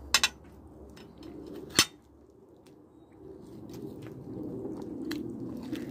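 Close-up chewing of crispy breaded chicken. There are sharp crunches right at the start and again just under two seconds in, then a softer, wetter chewing that grows louder toward the end.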